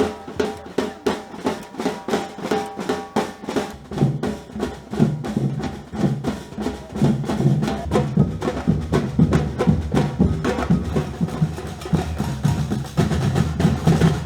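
Batucada drum ensemble playing a fast, driving rhythm, with bright, rapid strokes over deep bass drums. The low drums come in heavier about four seconds in, and the playing stops sharply at the end.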